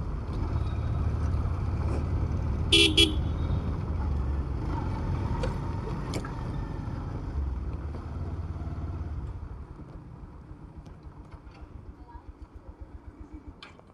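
Motorcycle riding with a steady low engine and road rumble, and a vehicle horn tooting briefly about three seconds in. Near the end the rumble drops away to a quieter, even putter of the engine idling.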